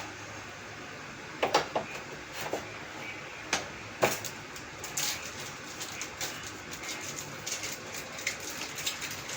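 Handling noises from unboxing and setting up a monitor: a series of sharp clicks and knocks, the strongest about a second and a half and four seconds in, then lighter ticks and rustling.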